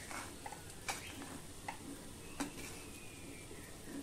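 Metal spatula stirring and scraping freshly cooked tomato rice in a pressure cooker, with short knocks of the spatula against the pot about once a second.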